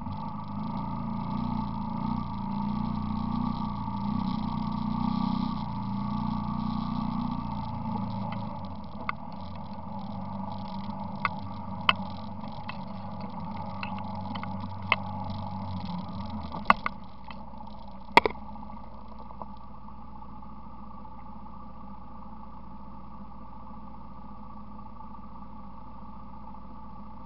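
ATV engine running as the quad rolls through muddy water, loudest in the first several seconds, then easing off. A handful of sharp clicks and knocks come between about nine and eighteen seconds in. After that the engine settles to a steady idle.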